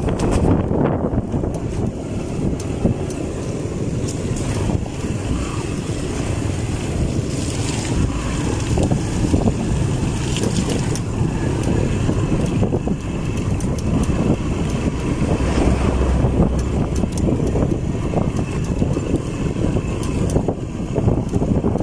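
Small dual-sport motorcycle engine running as the bike is ridden along a rough dirt road, heard from on the bike and mixed with rumbling wind and road noise.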